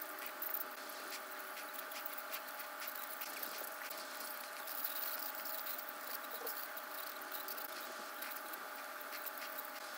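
Ultrasonic dental scaler working on a dog's teeth: a steady whine with a hiss from its water spray and irregular scratchy clicks as the tip scrapes tartar off the teeth.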